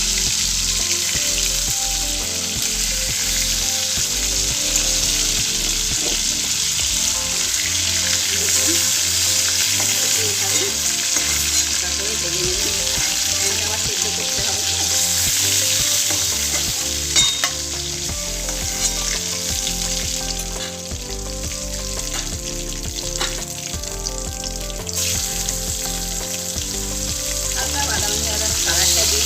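Food sizzling and frying in hot oil in a pan, with a utensil stirring through it and clicking against the pan now and then. The sizzle eases off for several seconds in the second half, then picks up again near the end.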